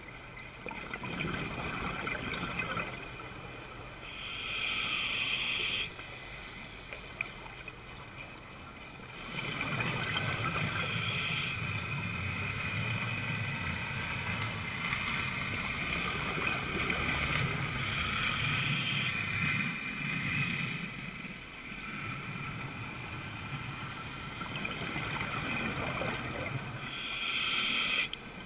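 A scuba diver breathing through a regulator underwater: a hissing inhalation about four seconds in and another near the end, with long bubbling, rumbling exhalations between them.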